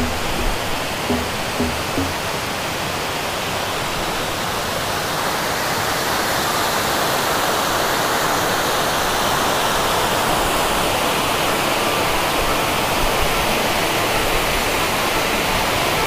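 Small waterfall cascading over rock ledges into a stony stream: a steady rush of falling, splashing water that grows a little louder over the first few seconds.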